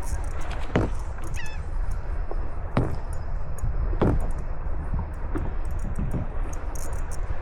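Three short, harsh bird calls like honks or caws, about a second, three seconds and four seconds in, over steady wind rumble on the microphone.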